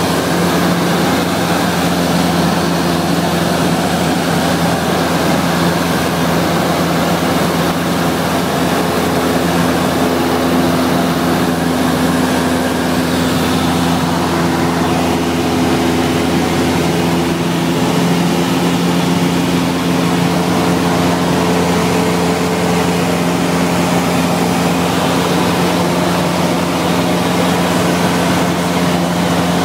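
Cessna 172SP's four-cylinder Lycoming IO-360 engine and propeller running steadily in flight, heard from inside the cabin as a loud, even drone that holds one pitch throughout.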